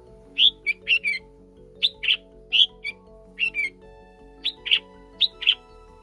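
Red-whiskered bulbuls chirping at the nest while the nestlings gape for food: about a dozen short, sharp calls, mostly in quick pairs. Soft background music with sustained notes plays underneath.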